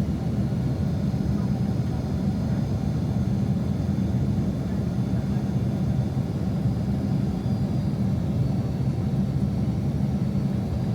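Steady cabin noise of a Boeing 767-300 in flight: an even, low roar of the jet engines and airflow, with a faint high whine above it.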